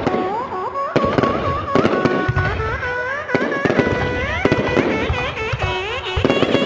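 Fireworks going off: sharp bangs every second or so among many rising whistles.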